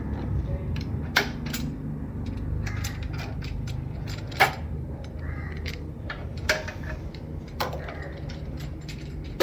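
Sharp clicks and snaps of cable ties being cut or pulled free by hand, four louder ones spread a second or more apart among fainter ticks, over a steady low hum.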